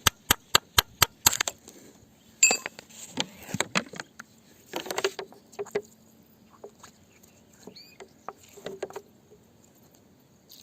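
Hammer tapping on rock in rapid, even strikes, about four a second, stopping about a second and a half in. Scattered knocks, clicks and short scrapes of rock being handled follow.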